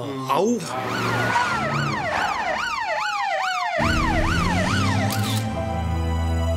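Police siren rising and falling rapidly, about twice a second. A music track comes in under it about four seconds in.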